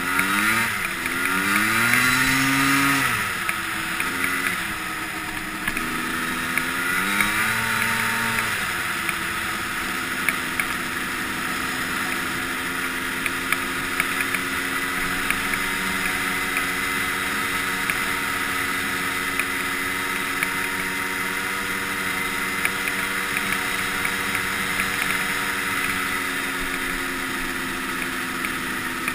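Yamaha Blaster ATV's two-stroke single-cylinder engine under way. It revs up and down several times over the first nine seconds or so, then holds a steady pitch while cruising.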